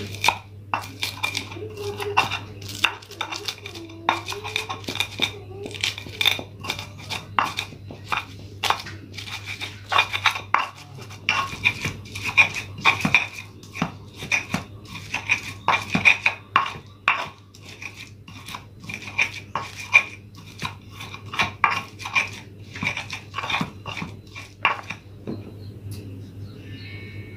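Pestle pounding and grinding a spice paste of shallots, garlic, chilli, candlenut and other spices in a cobek mortar: quick, irregular knocks with grinding scrapes between them, two or three a second, stopping about 25 seconds in.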